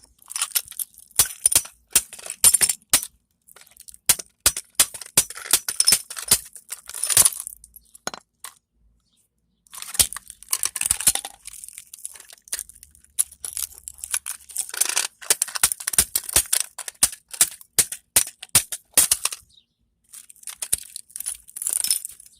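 Glass being tapped and broken out with a hand tool: repeated sharp taps with the crunch and clink of glass pieces. It comes in bursts, with pauses about eight seconds in and again near twenty seconds.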